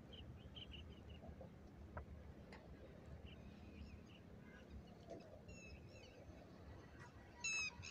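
Faint chirps and short whistles of wild birds over a low steady rumble, with one louder call near the end.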